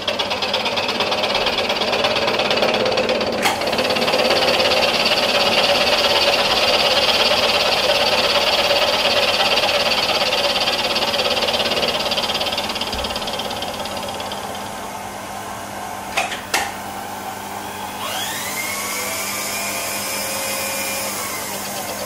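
Milling machine taking a facing cut with a 3/4-inch RMR end mill across the top of a cast rocker arm held in a vise, a steady cutting noise. The noise eases off after about 14 seconds, and two sharp clicks come a couple of seconds later.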